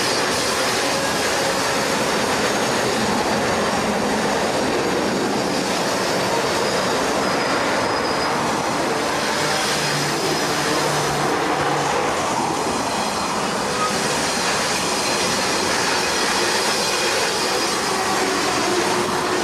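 Three GE diesel locomotives at the rear of a freight train passing close by on a curve: a steady run of engine drone and wheel-on-rail noise, with some wheel squeal.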